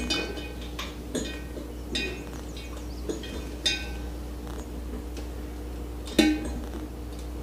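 Sharp metallic clinks and taps with a short ring, about six in all, the loudest about six seconds in, as metal parts knock together during wiring work at a motorcycle's handlebar. A steady low hum runs underneath.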